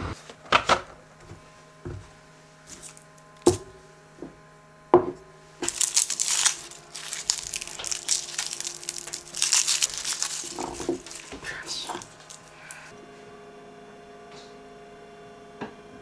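Garlic cloves being peeled by hand, their dry papery skins crackling and crinkling for several seconds, after a few sharp knocks on a wooden board.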